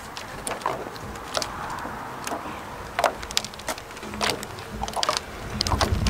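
Loaded metal trolley rattling and clattering as it is pushed over brick paving, with a low rumble building near the end.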